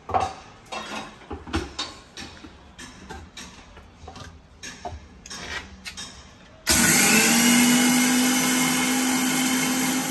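Knocks and clinks as a stainless-steel mixer-grinder jar and its lid are set in place, then about two-thirds of the way through an electric mixer grinder starts suddenly and runs loud and steady with a held whine, grinding roasted coriander seeds into coriander powder.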